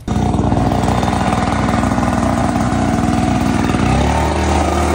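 Two-stroke ECHO backpack leaf blower engine running at a steady idle, its note changing about four seconds in.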